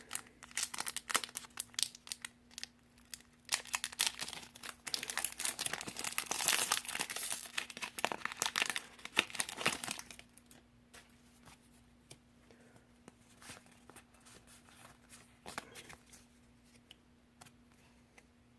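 Foil Pokémon booster pack wrapper being crinkled and torn open, a dense crackling that grows louder for about ten seconds. After that come only faint, scattered ticks and rustles.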